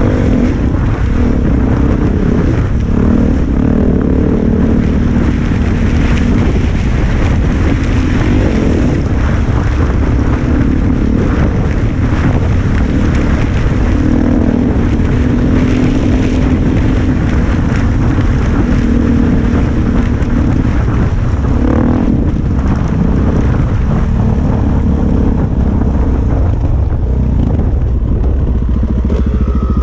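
Suzuki DR-Z400 single-cylinder four-stroke dirt bike engine running under load, its pitch rising and falling with the throttle over rough ground and easing off near the end as the bike slows. Wind noise on the helmet-mounted microphone.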